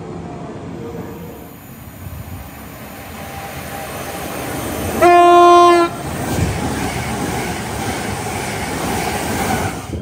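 GWR Class 387 Electrostar electric train sounding one steady horn blast of just under a second, about halfway through. Before and after the blast is the rising rumble and wheel clatter of the train running in.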